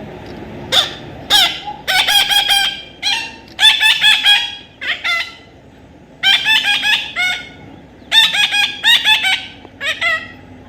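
Parrot calling in rapid runs of short, repeated notes, several bouts one after another with brief pauses between.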